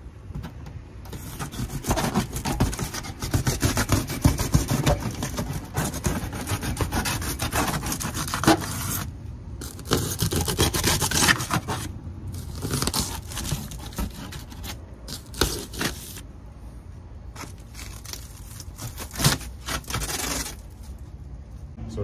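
A hand-held blade scraping and cutting along the edge of a garage door panel square, in rough, irregular strokes. It comes in several runs with short breaks between them.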